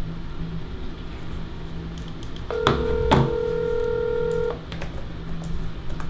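Smartphone ringback tone on speaker as a call is placed: one steady ring lasting about two seconds, starting a little before halfway, with two light taps near its start.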